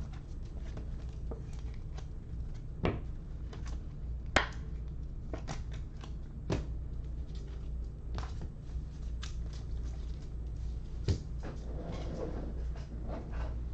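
Scattered light clicks and taps with a few sharper knocks, over a steady low hum.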